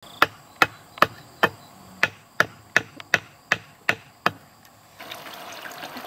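A steady series of about eleven sharp knocks, some two and a half a second, like hammer or chopping blows, stopping after about four seconds. About five seconds in, water splashing takes over.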